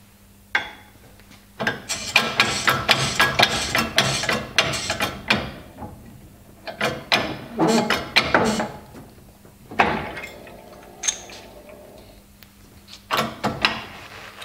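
Hand-pumped hydraulic press being worked to press a needle roller bearing into an e-bike motor's sprocket carrier against a depth tool: runs of rapid metallic clicks and clunks from the lever and tooling, a single sharp knock about ten seconds in, and more clicks near the end as the part comes out.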